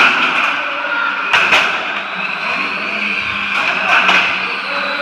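Radio-controlled streetstock model race cars running around the track, their motors giving a steady high whine that rises in pitch near the end. A few sharp knocks cut through it.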